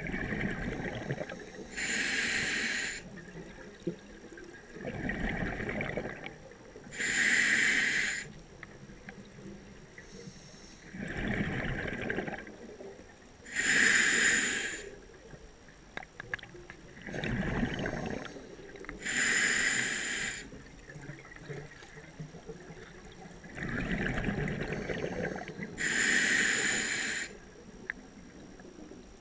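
Scuba diver breathing through a regulator underwater. Each breath is a hissing inhale through the demand valve and a bubbling, rumbling exhale, repeated five times at about six-second intervals.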